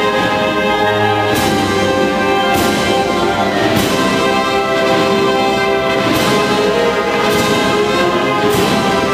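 Municipal wind band playing a processional march: full sustained brass chords, with percussion crashes on the beat about every second and a bit.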